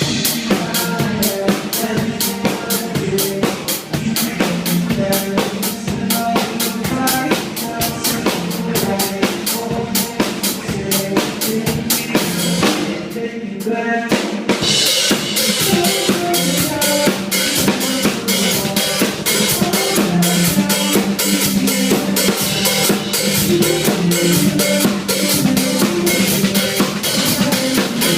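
Music led by a drum kit, with kick, snare and cymbals keeping a busy beat under pitched instruments and no singing. The cymbals and high end drop out for about a second around the middle, then come back.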